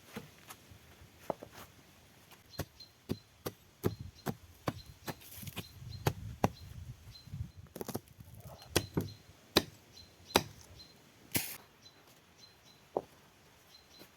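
Irregular sharp knocks and taps on wood, about twenty of them, some single and some in quick pairs, with a low rumbling scrape around the middle.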